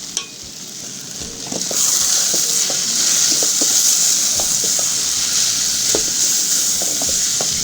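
Omena (small sardines) and vegetables sizzling in a frying pan while being stirred, with light taps and scrapes of the spoon on the pan. The sizzle grows louder about two seconds in.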